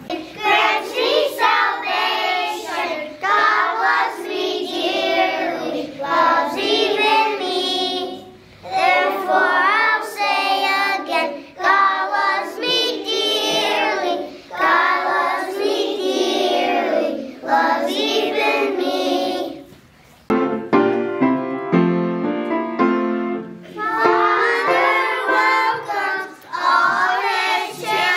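A kindergarten choir singing a song together in unison. About twenty seconds in the voices stop for a few seconds while a short instrumental passage plays in stepping notes, then the children sing again.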